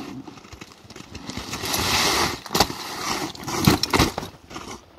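Deflated NRS Otter Fishing Dodger XL 14-foot raft being unrolled on snow: its heavy fabric rustles and scrapes as it slides out, then thumps down three times as it flops flat.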